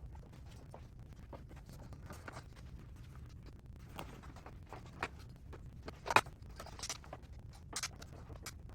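Hands working on a unicycle wheel and tire: scattered light clicks and scrapes over a low hum, with one sharper click about six seconds in.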